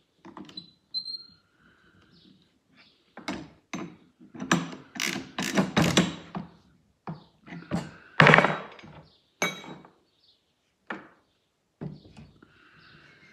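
Metal clicks, knocks and clatter as a 20 mm insert-blade bit is fitted into a Festool plunge router and its collet is tightened with a wrench. The clunks come irregularly, with short gaps, and the loudest is about eight seconds in.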